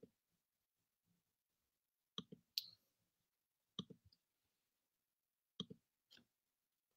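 Faint computer mouse clicks, mostly in quick pairs, one group every one and a half to two seconds, with near silence between them.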